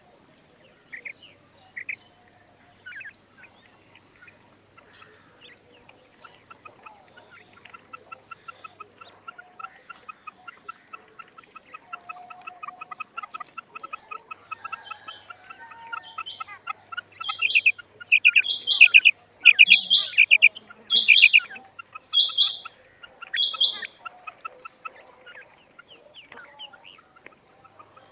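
Female quail calling: a few short calls at first, then a long run of fast, soft ticking notes, then six loud calls about a second apart that stop a few seconds before the end.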